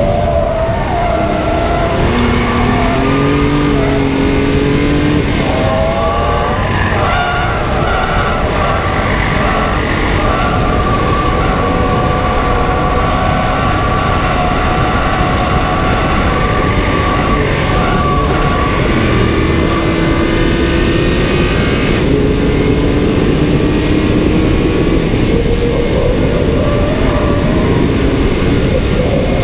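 Onboard sound of a BMW M car lapping a racetrack at speed: the engine note rises and falls as it accelerates and slows, over a constant rush of wind and tyre noise.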